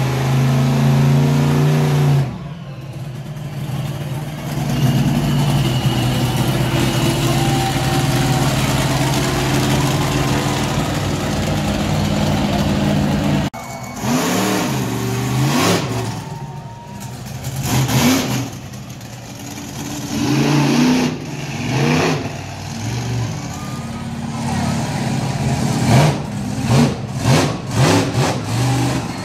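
Monster truck engine running hard with a steady, loud note through the first half. After a break about halfway through, it revs up and down again and again, with quick sharp blips near the end.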